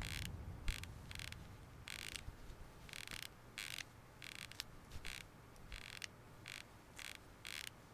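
About a dozen short, faint, dry rasping scrapes at uneven intervals.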